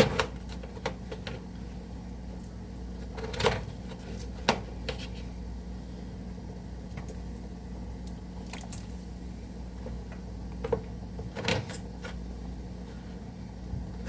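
Occasional knocks and clicks of kitchen work, such as utensils and cookware being handled, over a steady low hum.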